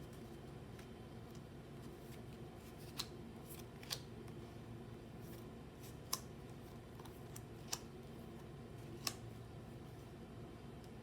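Trading cards being handled, giving a handful of sharp, light, separate clicks and taps a second or two apart over a steady low hum.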